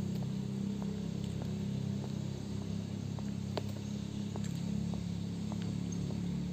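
A low, steady engine drone from a vehicle off to the side, fading away just after the end. Over it come light ticks about every half second: footsteps on the brick paving.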